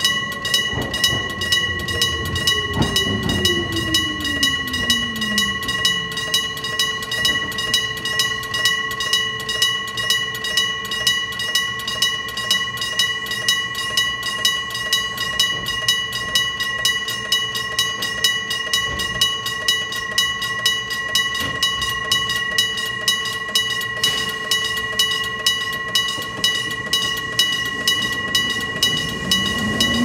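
Electric-bell level-crossing signal ringing steadily, its hammer striking the bell about twice a second with a bright ringing tone. Under it an electric train's motor whine falls in pitch over the first few seconds as the train slows into the station, and rises near the end as it pulls away across the crossing.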